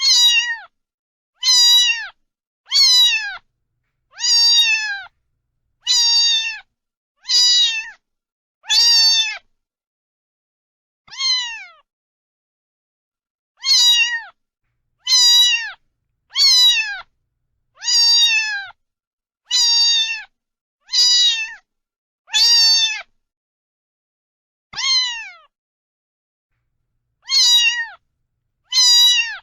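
A domestic cat meowing over and over, about eighteen meows roughly a second and a half apart. Each meow is short and drops in pitch at its end, with a longer pause around the middle.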